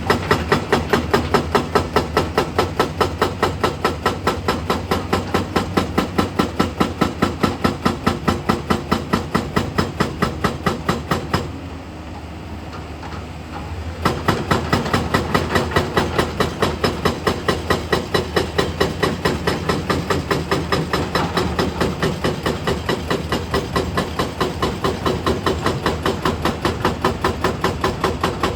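Hydraulic breaker on an excavator hammering in rapid, regular blows over the machine's diesel engine. Near the middle the hammering stops for about two and a half seconds, leaving only the engine running, then starts again.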